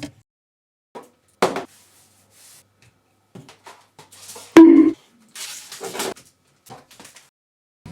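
Kitchen clatter: scattered knocks and clicks of things being handled and set down, with one loud ringing clunk about halfway through and a few brief rustles.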